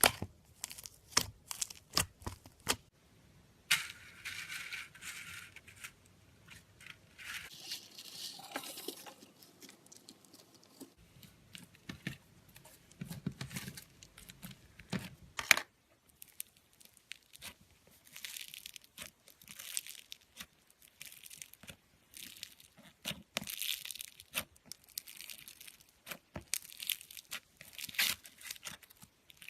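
Hands working slime: a steady run of irregular sharp clicks and pops, with stretches of noisy crackle every few seconds as the slime is pressed, stretched and pulled apart.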